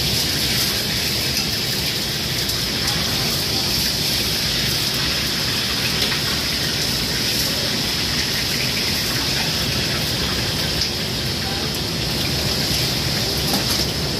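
Steady, loud rushing noise of a commercial wok range, its burner and running water mixed together, with a high hiss over it.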